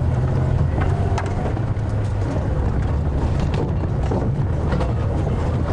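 Safari game-drive vehicle's engine running, a steady low rumble heard from on board.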